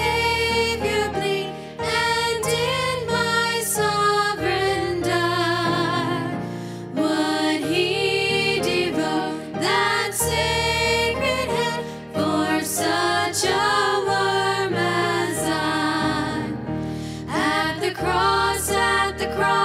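A women's vocal group singing a gospel song together over musical accompaniment, with sustained, wavering held notes and short breaks between phrases.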